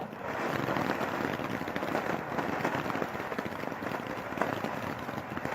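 A small consumer ground firework going off with dense, continuous crackling.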